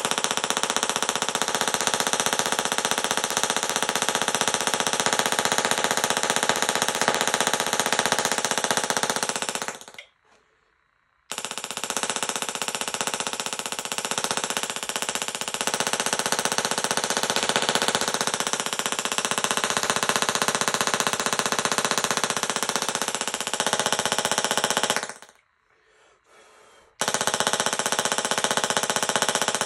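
Handheld mini Tesla coil running, a loud, harsh, steady buzz of rapid spark discharges. It cuts out suddenly twice, for about a second around ten seconds in and for nearly two seconds around twenty-five seconds in, then starts up again.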